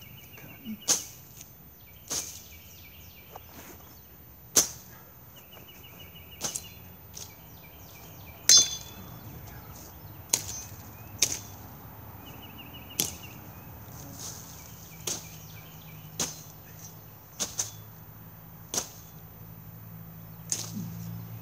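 An 18-inch Ozark Trail machete chopping through saplings and brush: about fourteen swinging strikes at uneven intervals of a second or two, the loudest about eight and a half seconds in.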